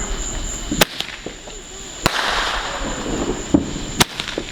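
Fireworks going off: three sharp cracks, each followed by a spell of fizzing hiss.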